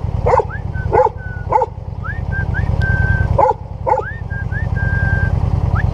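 A dog barking about five times, with high thin whines, some rising, held between the barks, over a steady low rumble.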